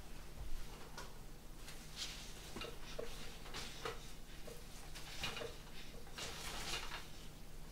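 Faint rustling and light ticks of cut flower stems and leaves being handled, as a stem is drawn out of a hand-tied bouquet and moved among stems in a glass vase.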